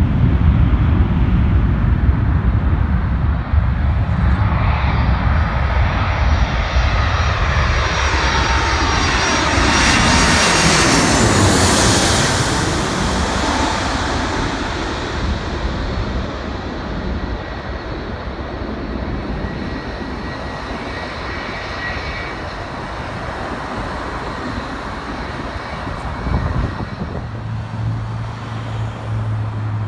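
Airbus A330-200 twin-engine jet airliner on final approach, passing low overhead: the jet noise builds to its loudest about eleven seconds in, then fades away. Near the end a low steady hum comes in.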